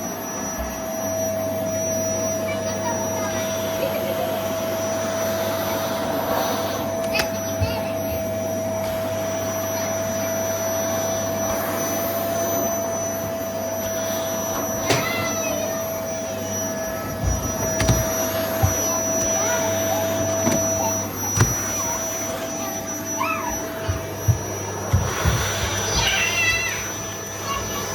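Household vacuum cleaner running with a steady whine and hum, with scattered knocks and clicks as it is worked across the floor; the whine weakens about three quarters of the way through.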